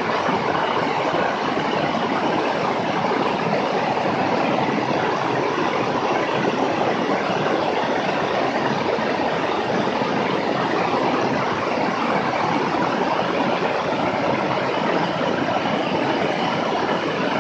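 Steady rush of airflow mixed with the engine and propeller noise of a Beechcraft S35 Bonanza in flight, heard through a camera mounted outside on the wing.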